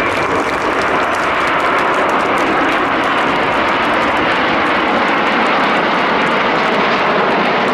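Jet noise from a close formation of Aermacchi MB-339 jet trainers flying past: a steady, loud rushing roar.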